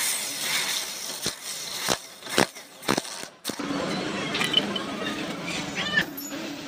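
Sharp metal clicks and knocks, four in the first three seconds, as a socket wrench and clutch parts are handled on a motorcycle's clutch assembly. After about three and a half seconds a steady low hum comes in behind it.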